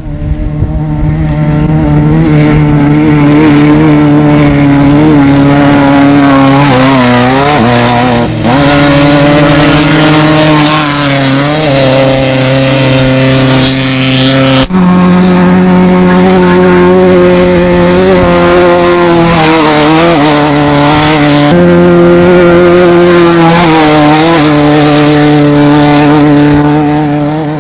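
Off-road desert race vehicles' engines running hard at high revs. The engine note holds steady for several seconds at a time, dips briefly and climbs back a few times, and changes abruptly to a different pitch three times.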